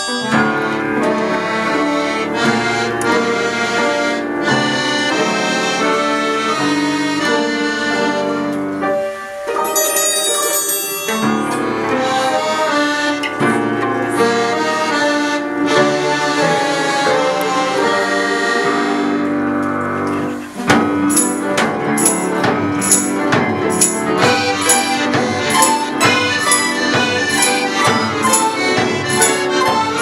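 An orchestra playing. About two-thirds of the way through the music moves into a livelier passage with a steady beat.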